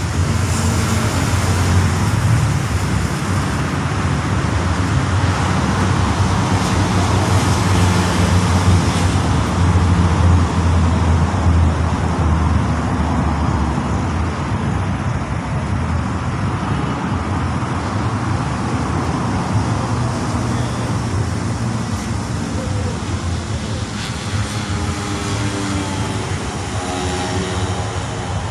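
Road traffic passing on the adjacent main road: a continuous rush of tyres and engines with a deep hum, swelling loudest about ten seconds in.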